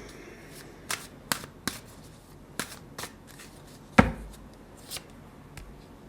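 Tarot cards being handled: a string of light flicks and taps of cards, with a heavier thump about four seconds in.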